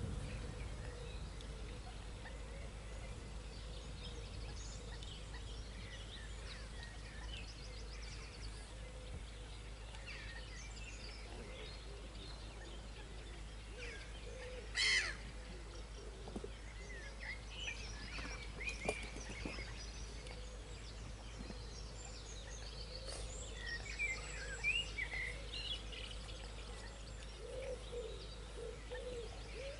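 Wild birds chirping and calling here and there outdoors over a low steady rumble. A brief, louder sharp sound comes about halfway through, and a cluster of louder chirps comes later.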